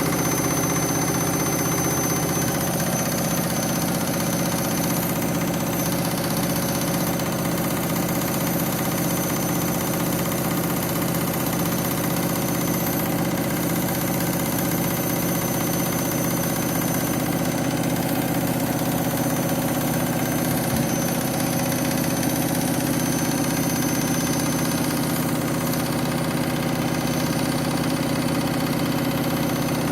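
Front-loading washing machine spinning at a steady speed: the drum motor running with a constant hum and whine over a rushing, rumbling noise, very noisy throughout.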